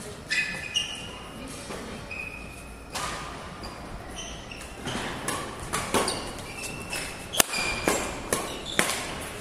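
Badminton play: a series of sharp racket hits on the shuttlecock, irregular and thicker in the second half, the loudest a crack about seven seconds in. Short high squeaks of court shoes on the floor come between the hits.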